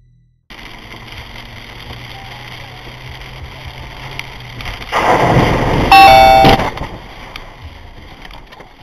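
Cabin audio from a car driving through heavy rain: steady rain and wet-road noise. About five seconds in comes a sudden loud rush of noise lasting about two seconds. Near its end is a loud tone that steps down in pitch and lasts about half a second.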